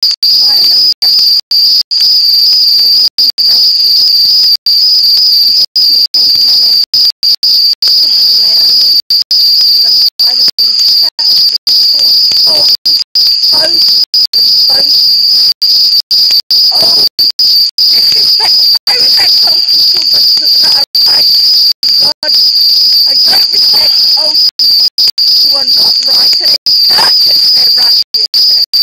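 Crickets chirring in a loud, continuous high-pitched trill, broken by many brief dropouts in the sound.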